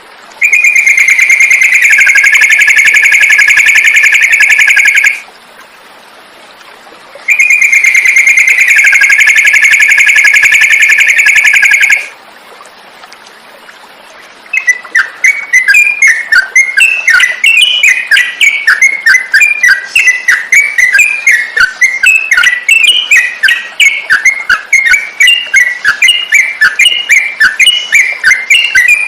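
Birdsong recording for masteran (training caged songbirds to copy). Two long, steady whistled notes of about four and a half seconds each come first. From about halfway through, a fast, continuous run of short bright chirps follows, typical of trucukan (yellow-vented bulbul) chatter.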